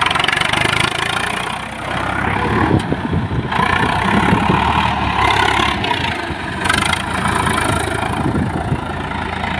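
1993 Swaraj 855 tractor's three-cylinder diesel engine running steadily as the tractor drives in tight circles, its loudness rising and dipping a little.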